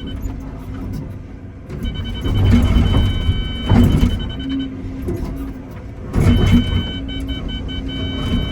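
Excavator working in rock: the diesel engine runs under load with a high hydraulic whine that comes and goes, and the bucket scrapes and grinds against solid shelf rock in loud bursts about two and a half, four and six seconds in.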